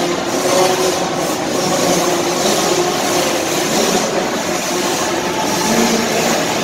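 Several small youth dirt bikes racing together, their engines buzzing and revving, the pitch rising and falling as they take the jumps, heard inside an indoor arena.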